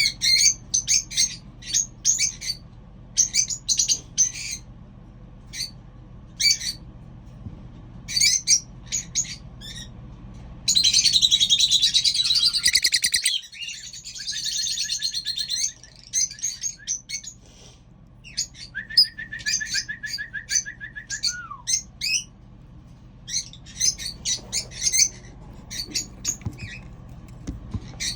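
Small pet birds chirping in quick, short calls, with a loud stretch of continuous warbling chatter about halfway through. Later comes a steady trilled note that slides down in pitch at its end.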